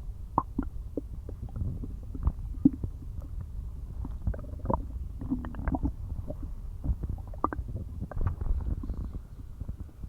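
Loud growling from an empty stomach: a continuous low rumble with many short squeaks and gurgles, and a brief higher squeal about halfway through.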